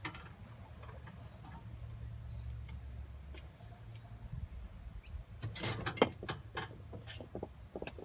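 Scattered light clicks and knocks from hands working behind an outdoor air conditioner unit, with a quick cluster of sharper knocks about five and a half to six and a half seconds in, over a low rumble.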